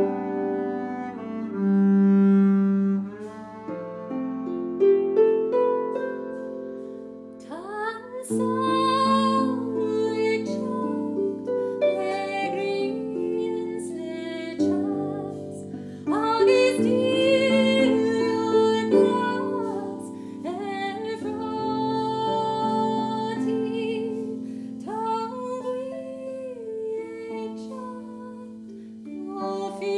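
Harp and bowed double bass playing an instrumental tune: the harp's plucked notes ring over long bowed bass notes, and a higher sliding melody line with vibrato joins about eight seconds in.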